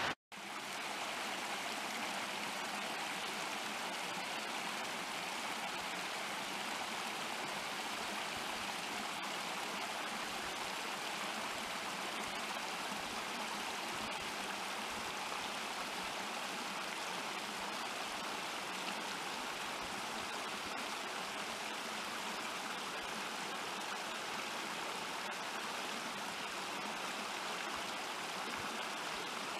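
A small creek running and splashing over rocks in a little cascade, a steady rushing water sound.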